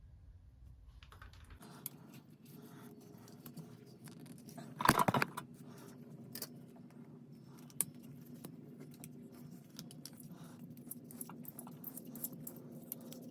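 Small metal clicks and clinks of pipe fittings and hand tools being handled while a well pump's old pressure switch is taken apart, with one louder clank about five seconds in. A steady low hum starts about a second and a half in.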